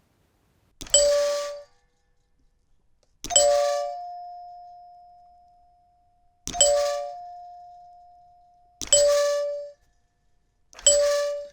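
Electric door chime's solenoid plunger striking its metal bar five times, a couple of seconds apart, with a biscuit tin lid resting against the bar. Each strike gives a short, quickly damped ding with a tinny buzz, and twice a higher note rings on for about three seconds.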